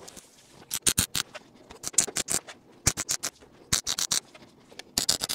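MIG welder tack-welding small steel tabs onto sheet metal, with five short bursts of arc crackle about a second apart.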